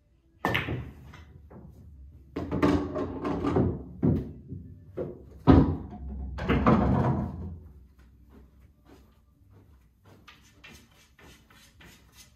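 Pool shot on a Diamond pool table: a sharp clack of cue and balls about half a second in. Then balls roll on the cloth and knock against the cushions and into a pocket for several seconds, with the loudest knock about five and a half seconds in. Faint taps follow near the end.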